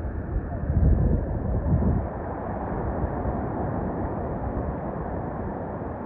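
Wind buffeting the microphone for a second or so near the start, over a steady rush of water.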